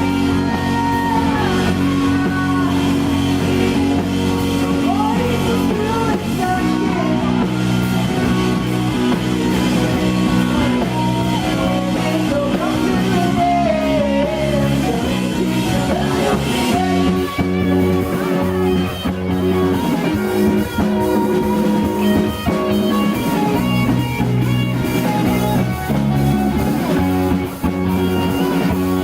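Rock band playing live: guitar over a drum kit, with sustained chords and bending melodic lines.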